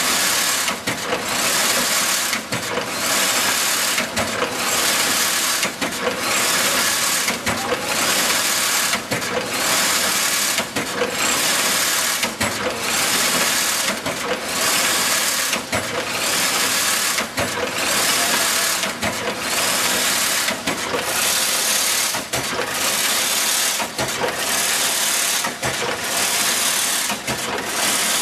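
Automated dual-wire chain link fence weaving machine running: a loud, dense mechanical clatter that dips briefly in a regular cycle, a little under a second apart, as it weaves wire mesh.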